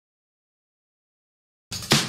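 Dead silence, then background music with a steady beat cuts in suddenly near the end.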